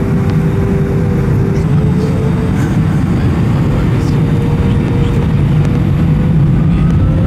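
Airbus A320 cabin noise in flight: the steady low rumble of the jet engines and airflow heard from inside the passenger cabin, with an engine hum that slowly rises in pitch.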